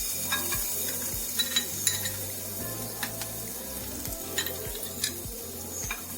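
Chopped garlic sizzling in hot ghee in a pan, with scattered clicks of a spoon against the pan as it is stirred.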